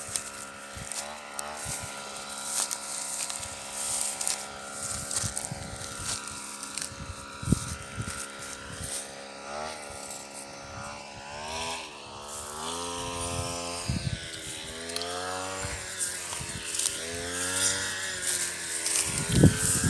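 Combine harvester engine running with a steady hum, then its speed rising and falling repeatedly through the second half.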